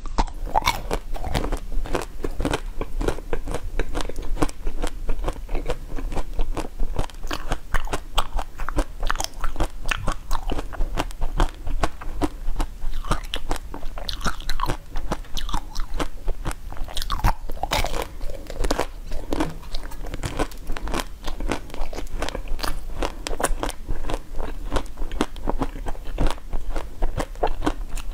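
Crunching and chewing of pink-coated strawberries: many quick, irregular crackles as the hard coating is bitten and broken, with chewing throughout.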